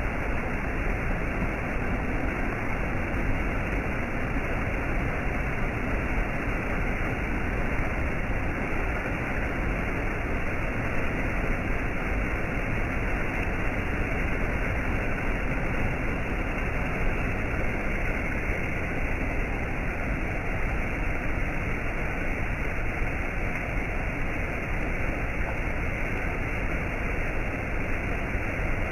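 Steady, even rush of falling water from a cascade, with no single splashes or breaks and little high hiss on top.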